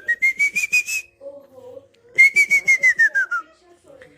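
Person whistling in two quick runs of short pulsed notes, the first rising slightly and the second, about two seconds in, falling away.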